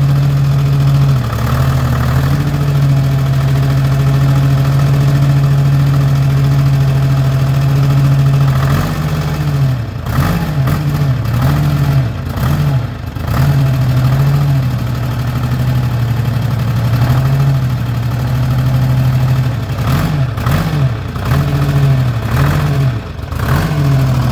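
Dynahoe 160 backhoe engine running steadily. About nine seconds in, and again about twenty seconds in, its speed sags and recovers several times as the hydraulics are loaded by working the levers.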